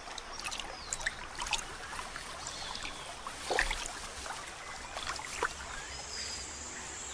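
Water splashing and trickling, with irregular sloshing strokes and a louder splash about three and a half seconds in.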